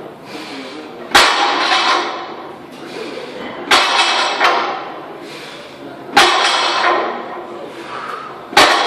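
Heavily loaded barbell (170 on the plates' counter) set down at the bottom of each deadlift rep: four sharp bangs about two and a half seconds apart. Each bang is followed by a short ringing clatter of the plates and echo in a large room.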